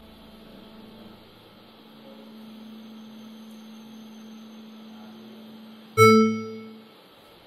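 A steady low hum, then about six seconds in a sudden loud chime that rings out and fades over about a second: a video transition sound effect.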